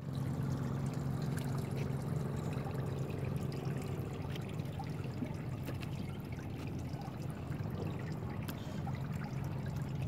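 Seawater trickling and dripping from a stacked sea cucumber culture cage hauled up out of the sea, with a few light clicks of handling. A steady low hum runs underneath, loudest in the first half.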